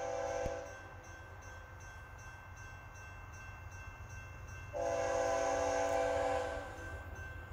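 A distant BNSF freight locomotive's multi-note air horn sounding for a grade crossing. The tail of one long blast cuts off just after the start, then a second long blast comes about five seconds in and lasts nearly two seconds, over a low steady rumble.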